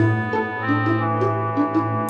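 Background music: a keyboard piece with held chords over a steady low bass note and short melody notes about three a second.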